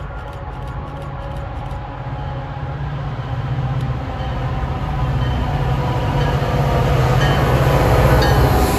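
Approaching train: a diesel locomotive's low engine hum and rail rumble growing steadily louder as it nears.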